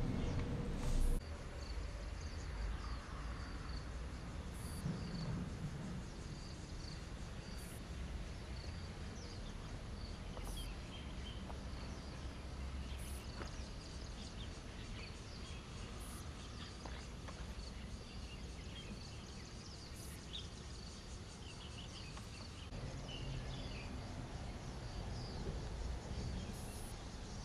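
Outdoor ambience: a steady low rumble with faint, irregular high chirps and ticks, and a brief louder knock about a second in.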